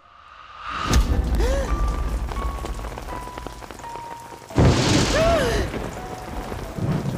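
Rain falling steadily, with two sudden thunderclaps, one about a second in and a louder one past the middle, over soft background music.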